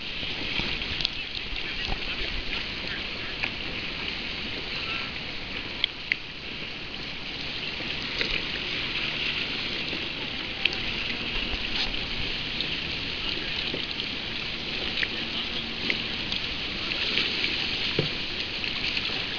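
Sea water lapping and splashing against a plastic kayak hull, with a steady hiss of small waves and scattered light splashes and ticks throughout.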